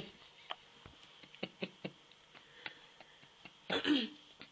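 Faint, scattered small clicks at an uneven pace, then one short vocal sound from a person about four seconds in.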